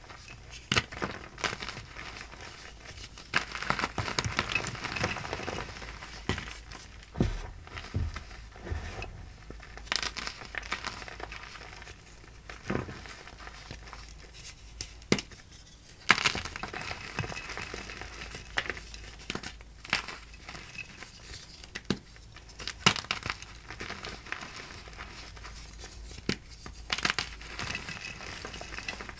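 Blocks of gym chalk crushed and crumbled by hand into chalk powder: soft, irregular crunching and crackling, broken by scattered sharp snaps as pieces break apart.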